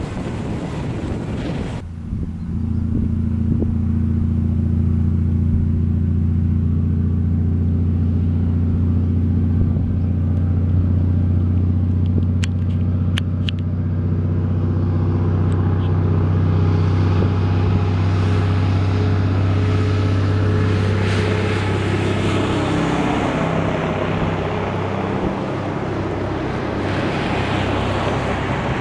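Wind on the microphone briefly, then a heavy road truck's diesel engine pulling an oversize load, a steady low drone that loosens and varies in the last few seconds as the truck goes by.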